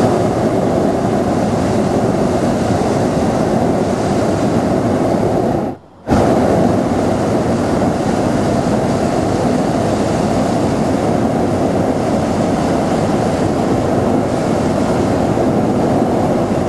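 Hot-air balloon's propane burner firing in a loud, steady blast, shut off briefly about six seconds in and then firing again.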